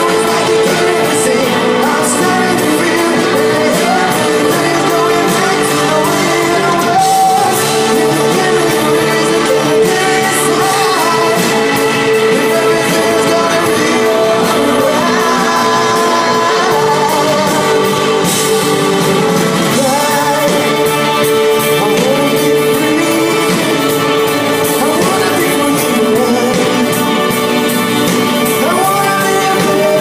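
A live pop band playing through a stage PA, with electric guitar and singing.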